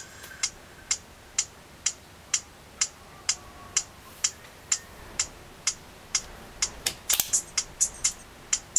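Music starting on a small phone loudspeaker: a steady beat of sharp, high ticks about twice a second, like a hi-hat. A little after seven seconds in, the ticks come faster and denser as more of the track comes in.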